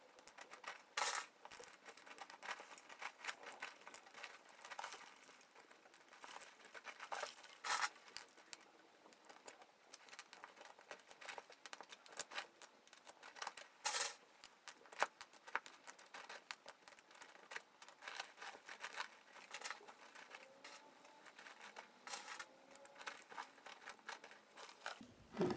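Expanded clay pebbles (hydroculture clay balls) clicking and rattling against each other and a glass jar as they are packed around a plant's roots: scattered small sharp clicks, a few of them louder.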